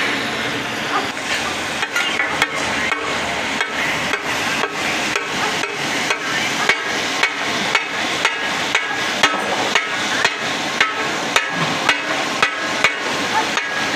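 Taka tak: a heavy metal spatula striking and chopping meat on a large flat steel griddle. The sharp metallic clacks come in a steady rhythm of about two a second, starting about two seconds in, over a continuous sizzle.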